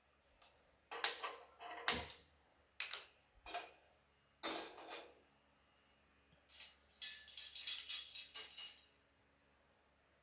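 Metal kitchenware being handled: a few separate knocks and clatters of pans and utensils, then about two seconds of steel ladles jangling and clinking together.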